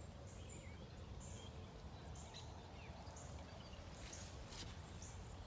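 Quiet outdoor ambience: a low steady background with faint, short high bird chirps about once a second.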